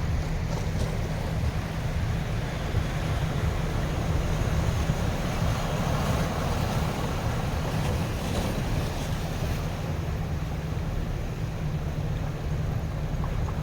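Ocean waves washing steadily at the shore, with a constant low rumble of wind on the microphone.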